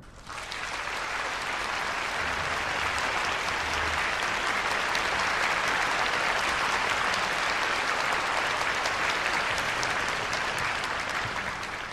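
A concert-hall audience applauding: dense, steady clapping that starts just after the last note of the music and stops suddenly at the end.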